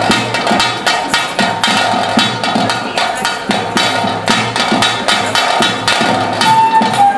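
Flute melody over fast, steady hand-drum rhythm, the drum strokes coming several times a second; near the end the flute holds a few long, clear notes.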